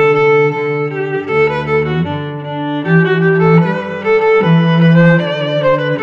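Background music of bowed strings, violin and cello, playing slow held notes that change every second or so.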